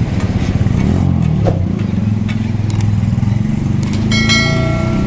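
A motor-vehicle engine running steadily close by, with scattered clatter. About four seconds in, a pitched tone with several overtones sounds for about a second.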